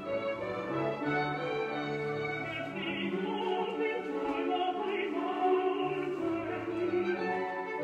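Classical music with an orchestra and operatic singing, long held notes throughout.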